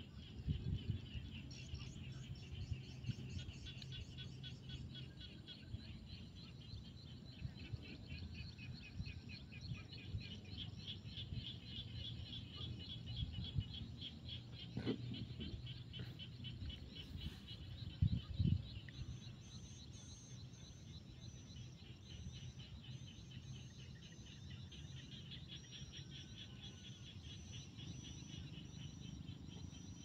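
A chorus of frogs calling, a dense, rapidly pulsing trill that goes on throughout. A thinner, higher call joins about two-thirds of the way through, over a low rumble, with a couple of low thumps near the middle.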